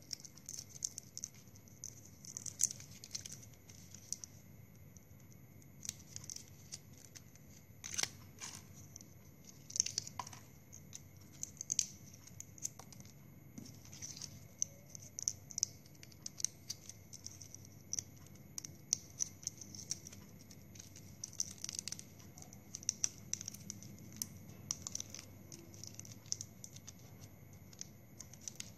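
Plastic drinking straws being handled: cut straw pieces click and crinkle against each other and the plastic tub as they are picked up and threaded onto a wire stem, in quick, irregular ticks and rustles.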